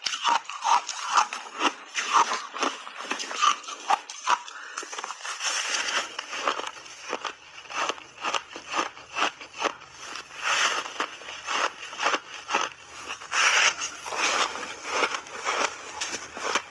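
Close-up crunching and chewing of refrozen block ice coated in matcha and milk powder: a dense, irregular run of sharp crunches, several a second.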